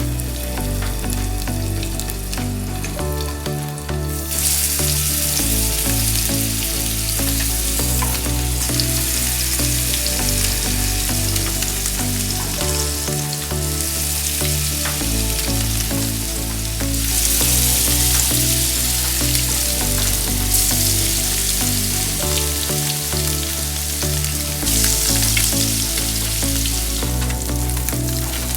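Tofu sizzling as it fries in a hot pan. The sizzle comes in suddenly about four seconds in, then swells and eases in stretches. Background music with a bass line plays underneath.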